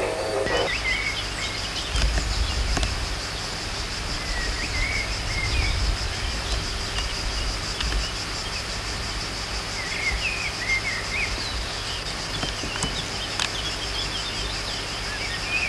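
Outdoor summer ambience: a steady high insect drone runs throughout, and short bird chirps come now and then. A low rumble on the camcorder microphone swells a couple of times.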